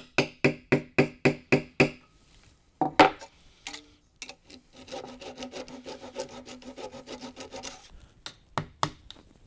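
A mallet driving a 1/4-inch dowel into a glued hole in a walnut cabinet's top: about seven quick blows, then one harder knock. Then a flush-cut saw rasps back and forth for about three seconds, trimming the dowel flush, and a few more mallet blows follow near the end.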